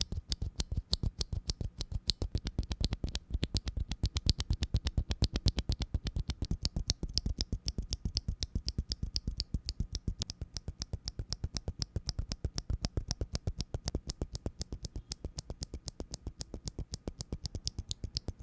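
Mechanical keyboard with TKC x C3 Kiwi tactile switches being typed on steadily, about seven keystrokes a second, in a run of quick clacks with no pause.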